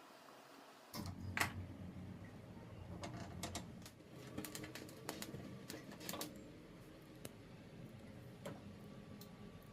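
Scattered light clicks and taps of kitchen utensils being handled, over a low steady hum that comes in about a second in.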